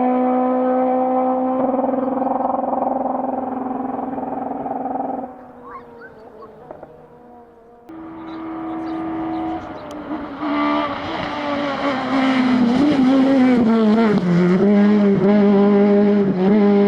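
Rally car engines. The first holds steady revs and drops away about five seconds in. After a short lull, a sudden cut brings in another loud engine whose revs waver up and down, dipping and then holding as it drives the stage.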